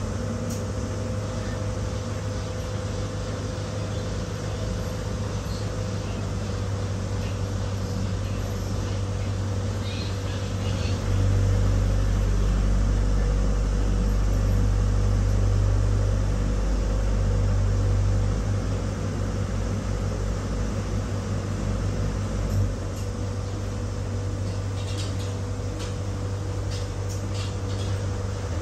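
Boat engine running steadily, a low rumble with a steady hum, heard from inside the cabin. It grows louder about eleven seconds in and eases back a few seconds later.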